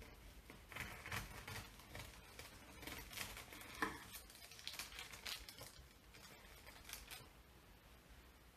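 Bread knife sawing back and forth through crisp toast topped with melted cheese and avocado: a series of crunchy, rasping strokes, with one sharper crack a little before the four-second mark. The crust is tough and takes some effort to cut.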